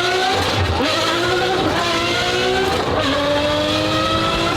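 Ferrari 599's 6.0-litre V12 accelerating hard through the gears of its gated manual gearbox: the engine pitch climbs steadily, falls sharply at an upshift about a second in and again about three seconds in, then climbs again.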